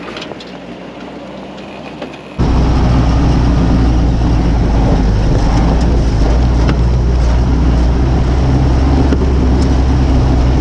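Willys CJ-2A Jeep driving over loose gravel on knobby ATV tires: first its engine and crunching stones from a short way off, then, from about two and a half seconds in, a loud steady low drone of engine and drivetrain with gravel rattling, heard from beneath the Jeep.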